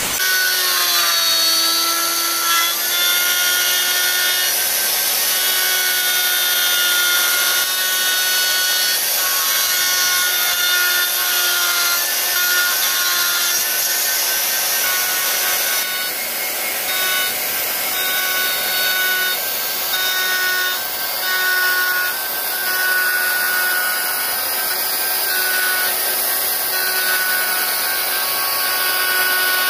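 Electric plunge router running at speed with a steady high whine, its spiral bit cutting into a wooden board and throwing chips, the cutting noise rising and falling slightly as it is guided along the pattern.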